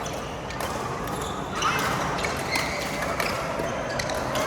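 Badminton rally: rackets striking the shuttlecock roughly once a second, with shoes squeaking on the court floor.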